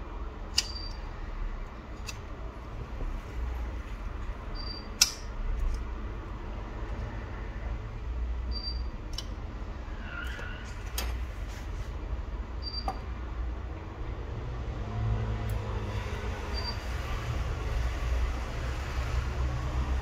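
Light clicks and taps from fingers pressing on the opened Samsung Galaxy Note 10's internal parts, over a steady low hum. A faint, very short high beep repeats about every four seconds.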